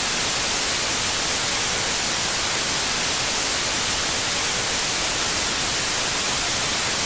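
Steady, loud static hiss, an even white noise strongest in the treble, with no breaks or changes.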